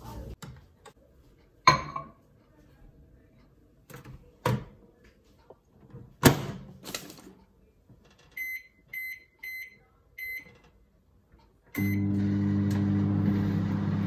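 A few sharp knocks and clunks as a mug is handled and put into a microwave oven. Then four short keypad beeps as the time is set, and another beep. After that the microwave starts running with a steady hum.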